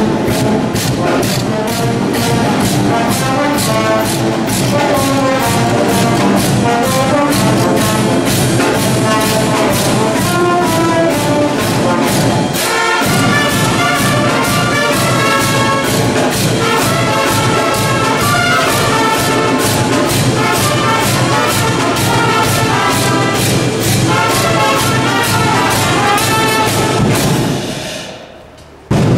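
Brass band of trumpets and other brass playing a procession tune over a steady beat; the music fades away near the end.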